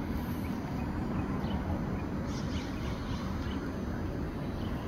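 Park ambience: steady low wind buffeting on the microphone, with a few faint bird chirps around the middle.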